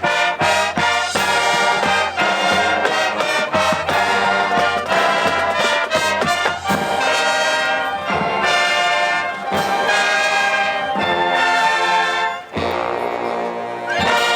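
Brass band music: trumpets and trombones playing a lively tune of short, quickly changing notes, with a brief break about twelve and a half seconds in.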